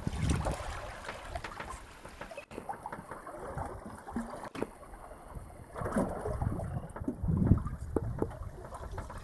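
Wind buffeting the microphone in irregular low gusts, with sea water splashing and lapping against a small boat.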